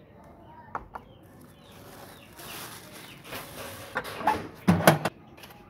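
Rustling and scraping of handled things, then a cluster of loud knocks and clanks a little after four seconds in as the hinged lid of a sheet-metal storage box is lifted.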